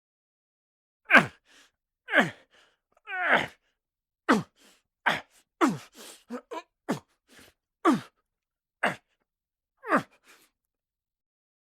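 A person's short effort grunts and strained exhalations, about eleven of them, each dropping in pitch, separated by silent gaps.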